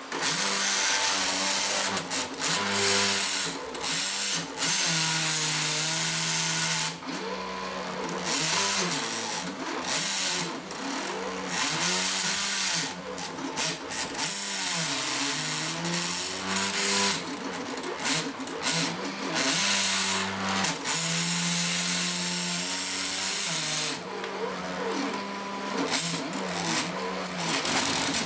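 X and Y stepper motors of a stripped Epson LQ-2070 dot matrix printer chassis, driven by Mach3 CNC software through a drawing file. They whine at pitches that keep jumping and gliding up and down as the carriage and paper roller change speed and direction, with a rattling noise that cuts in and out.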